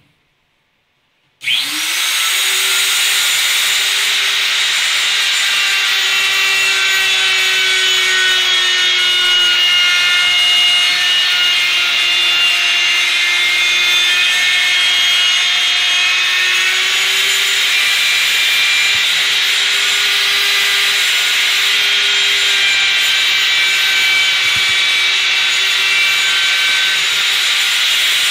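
Handheld router with a flush-trim bit switching on about a second and a half in, spinning up quickly to a steady high whine, then running continuously as it trims the wooden edge flush.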